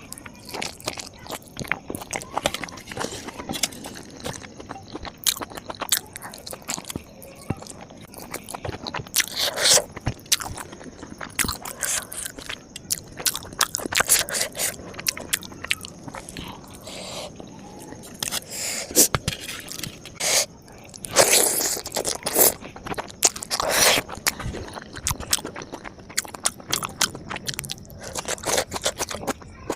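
Close-miked eating: crunchy bites and chewing, a run of sharp crackling crunches with a few louder bursts of crunching.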